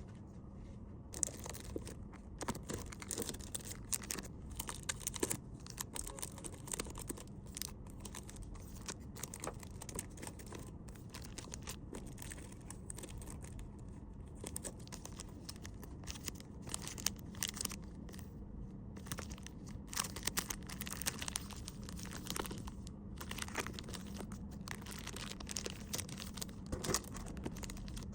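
Faint rustling and crinkling of paper and plastic packaging as small items are handled and packed, with scattered light ticks and taps at irregular intervals.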